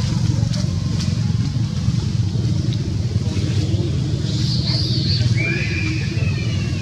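Steady low rumble of a motor vehicle running, with a few high chirps and gliding calls about four to six seconds in.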